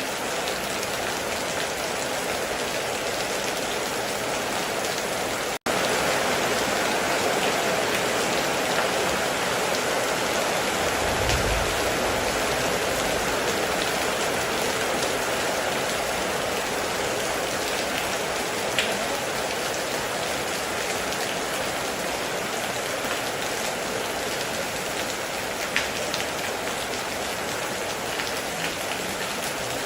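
Heavy rain pouring steadily, with two sharper drop hits standing out. There is a brief low rumble about eleven seconds in, and a split-second dropout to silence about six seconds in.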